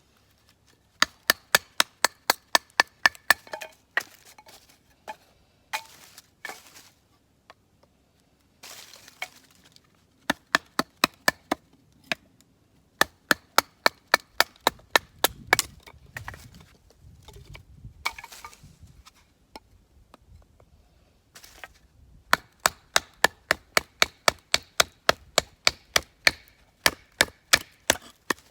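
Rapid, regular chopping strikes on wood, about four a second, in runs of several seconds broken by short pauses, each strike with a brief ringing tone.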